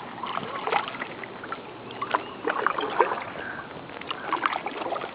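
Kayak paddling: water splashing and dripping off the paddle blades in irregular small strokes, with scattered light knocks.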